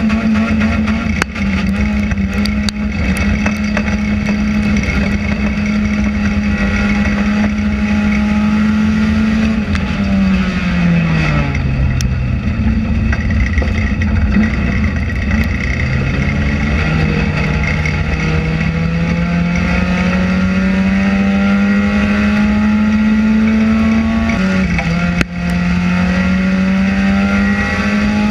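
Enduro race car's engine heard from inside the cockpit, held at high revs. About ten seconds in the revs fall away as the throttle is lifted, then climb steadily back over the next several seconds, with another short dip near the end. A few sharp knocks are heard over the engine.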